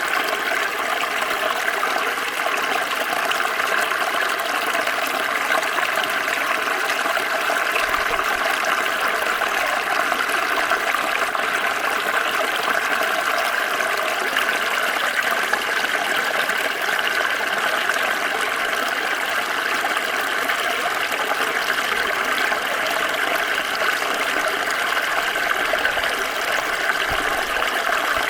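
Small stream flowing steadily over stones, a continuous even rush and babble of water.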